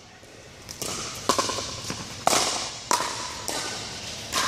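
Pickleball rally: a plastic pickleball popping off paddles and bouncing on the court, about six sharp pops half a second to a second apart, echoing in a large hall.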